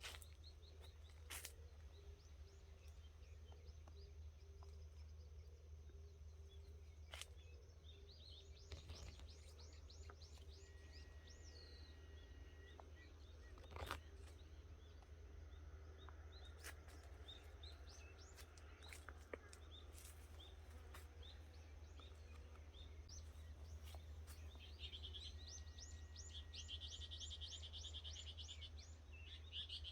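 Faint birdsong: quick runs of high chirps about nine seconds in and again near the end, over a steady low hum, with a few scattered clicks.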